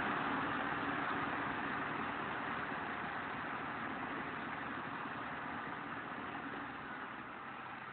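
Motor grader's diesel engine running steadily, growing gradually fainter.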